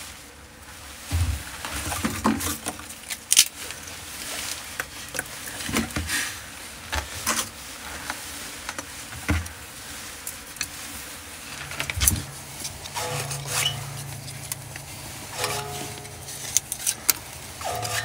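Hands working in the firebox of a sheet-metal wood stove, scraping through the old ash and laying wood kindling sticks inside. The sounds are irregular scrapes, clinks and knocks of wood against the metal stove.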